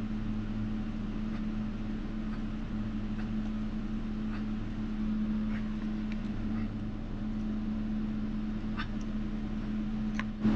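A steady low hum from room machinery or mains, with a few faint light clicks and scrapes of a small metal sculpting tool working clay over a wire armature.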